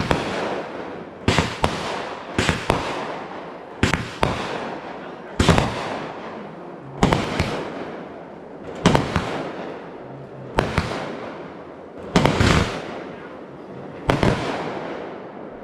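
A consumer fireworks cake firing a string of aerial shots: a sharp bang roughly every second and a half, some in quick pairs, each fading away before the next.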